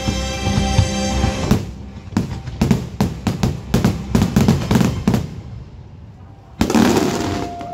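Show music playing, then from about a second and a half in, a rapid string of fireworks shells bursting with sharp bangs and crackles for several seconds. Near the end a loud rushing noise breaks out.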